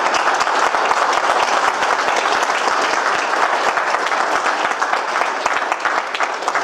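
Audience applause: many people clapping steadily at the end of a talk.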